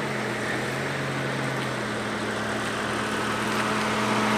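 Suzuki Jimny SJ413's 1.3-litre four-cylinder petrol engine running at a steady low speed as the small 4x4 drives closer, growing slowly louder toward the end.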